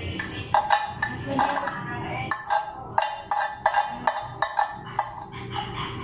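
A metal fork tapping and scraping inside an empty glass baking dish: repeated clinks at an uneven pace, about two a second, each ringing briefly.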